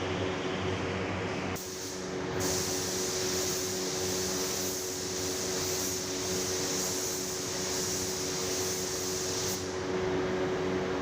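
Spray gun hissing as compressed air sprays paint onto plastic wheel-arch cladding, starting about one and a half seconds in and cutting off near the end, over the steady hum of a running machine.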